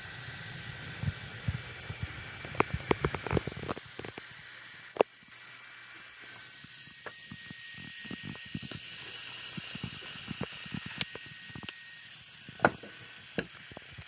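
The small active cooling fan in the base of an Acasis TBU405 Plus Thunderbolt 4 docking station runs steadily: a noticeable whir with a faint high whine, comparable to a laptop fan, under scattered clicks and taps from the unit being handled. The fan has no manual speed control and keeps this noise whether the drive is busy or idle.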